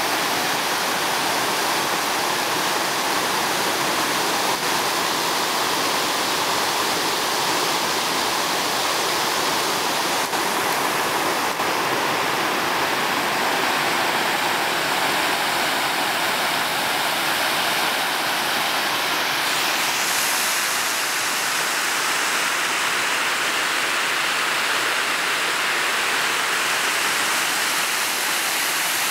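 Whitewater rapids of the Sioux River rushing steadily over rocks.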